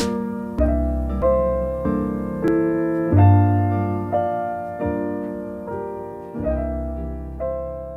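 Background music: piano or electric-piano chords struck at an even pace over a deep bass, fading out near the end.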